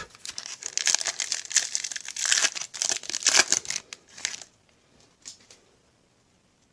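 Plastic wrapper of a Bowman baseball card pack crinkling as it is torn open and pulled off the cards by hand, a dense crackling that stops about four and a half seconds in. A couple of faint handling clicks follow.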